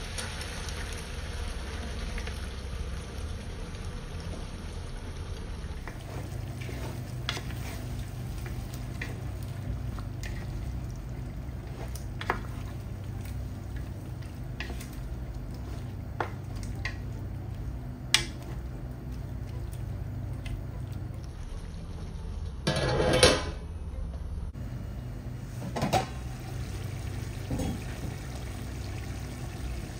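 A wooden spoon stirring chicken curry in a large metal pot as it cooks, the food sizzling and bubbling, with occasional sharp knocks of the spoon against the pot and one louder clatter about two-thirds of the way through. A steady low hum runs underneath.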